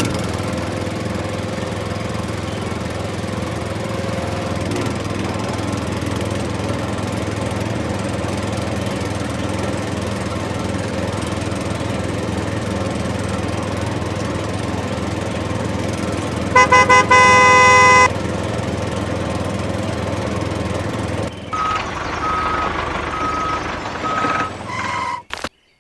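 Steady vehicle engine and traffic noise with a horn honked in several quick toots about two-thirds of the way through, followed by a few short, evenly spaced beeps.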